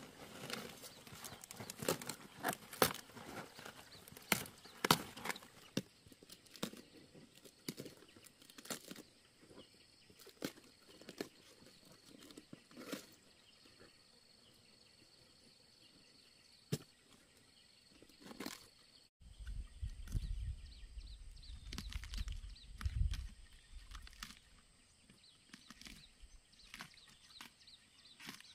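A large knife chopping through cabbage stems, with crisp leaves cracking and snapping: a quick run of sharp chops for the first several seconds, then only scattered snaps. Later a low rumble comes in for a few seconds.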